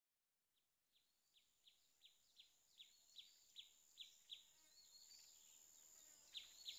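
Faint chirping: a run of short calls, each dropping in pitch, about two to three a second and growing louder, then a pause and three more near the end.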